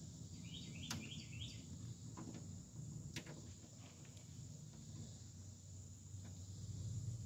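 Outdoor ambience: a steady high insect drone, with a short run of repeated bird chirps about half a second to a second and a half in, and a few faint ticks.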